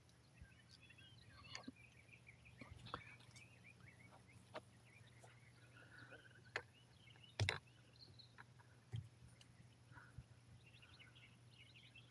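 Faint bird chirps, with a few light clicks and taps from plastic solar cable connectors being handled; the sharpest click comes about seven and a half seconds in.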